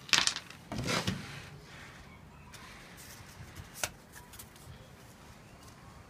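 Plywood jig template and thin aluminium sheet pieces being lifted off locating pins and handled on a workbench: a sharp knock at the start, a clattering rattle about a second in, and one light tap near four seconds.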